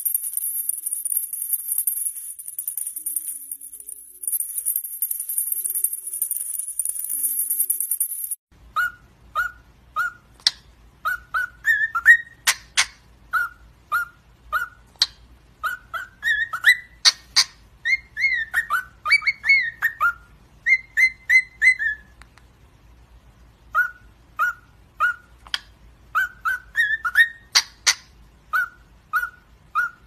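For the first eight seconds, a small parrot shakes a toy maraca in its beak, making a steady high rattle. Then cockatiels whistle a run of short notes, some of them rising, with small clicks between them.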